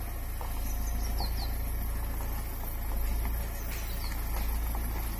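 Small tipper truck's diesel engine running with a steady low rumble as the truck reverses and turns. A few faint bird chirps come about a second in and again near the end.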